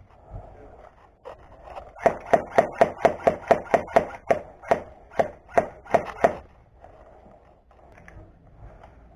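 Airsoft gun firing about fifteen shots in quick succession, a few per second, from about two seconds in until about six seconds in.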